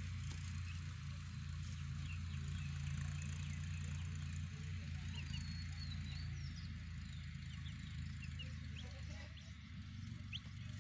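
Young chicks cheeping with scattered short, high peeps over a steady low hum.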